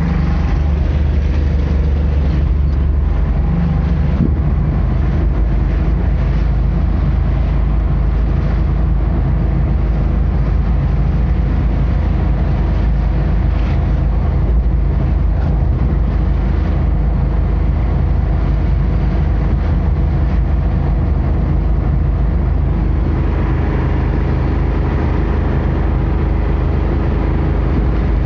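Engine and road noise heard from inside a moving road vehicle: a steady low drone.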